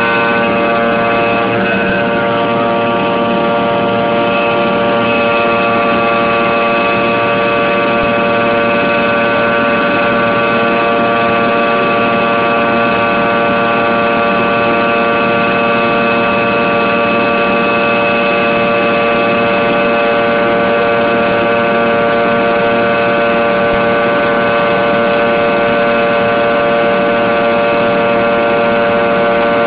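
Fokker 100's twin rear-mounted Rolls-Royce Tay turbofans heard inside the cabin in the climb: a loud, steady drone with many steady whining tones over a rushing hiss.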